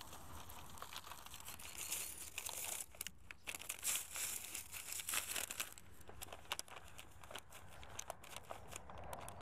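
Plastic packet of dry groundbait crinkling and rustling as it is handled over a bait bucket, in irregular crackles.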